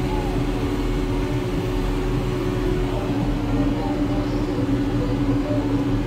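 Farm sprayer's engine running steadily with an even drone and a constant hum, heard from inside the cab.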